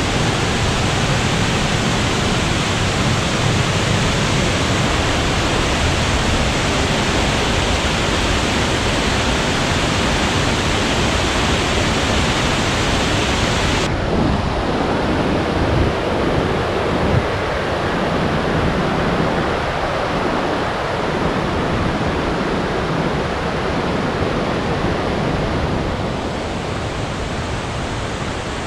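Steady rush of a high-volume waterfall, Fukiware Falls. About halfway through the sound changes abruptly and turns duller, losing its highest hiss.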